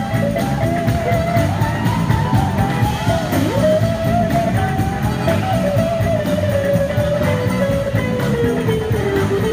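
A live soul band playing, with electric guitars over drums and bass. A lead line bends and slides in pitch, dipping sharply and coming back up about three and a half seconds in.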